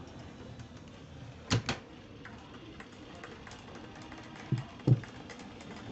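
Kitchen utensils knocking and clinking against a pot and a ceramic plate while noodles are served: a quick double knock about one and a half seconds in, two sharper knocks near the end, and light ticks in between.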